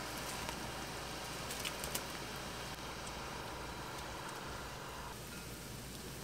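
A pot of spicy broth simmering on an induction cooktop, under a steady mechanical hum, with a few light clicks.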